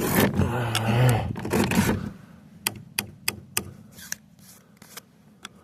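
Hand work on a chainsaw: a few rough scraping strokes, then a run of about eight sharp metallic clicks and taps spread over a couple of seconds.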